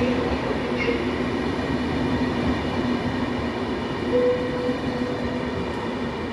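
A rail vehicle running on track at the station: a steady rolling rumble with a constant hum, and a brief higher tone about four seconds in.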